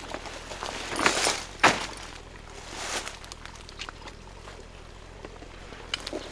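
Spring water pouring and trickling steadily from Sawmill spring, which is flowing well. A couple of louder short noises come about a second to a second and a half in.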